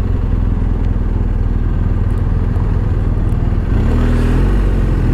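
BMW R1250 GS Adventure's boxer-twin engine running as the motorcycle rides along, its pitch rising as it picks up speed about four seconds in.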